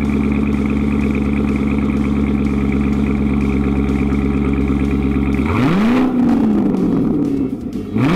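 Corvette C7 Grand Sport's 6.2-litre V8 through an AWE Touring Edition cat-back exhaust, idling steadily. Then it is revved twice with quick throttle blips, about five and eight seconds in, each rising sharply and falling away more slowly.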